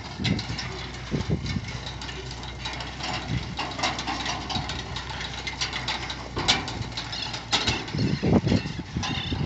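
An engine running steadily under repeated irregular clanks and rattles as a bale elevator carries a hay bale up to a truck.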